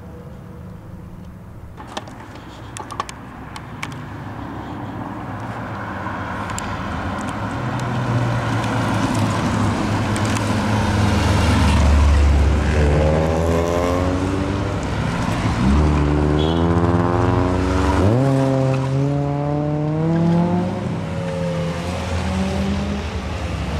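Several fourth-generation Honda Accords drive one after another past on a winding mountain road, growing steadily louder as they approach. Their engines rev up and down through the bend, with the pitch climbing sharply twice in the second half as drivers accelerate hard.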